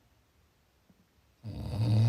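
Snoring: a quiet pause between breaths, then about three-quarters of the way in a loud, low snore starts and holds a steady pitch.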